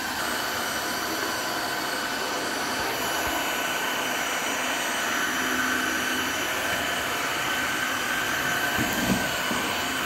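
Tineco cordless wet-dry floor washer running as it is pushed across a tiled floor: a steady motor hum and high whine.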